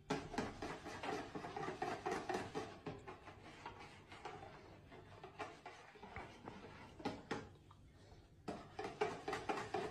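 Hand whisk beating pancake batter in a plastic bowl: quick clicking, scraping strokes, easing off in the middle and picking up again for the last couple of seconds.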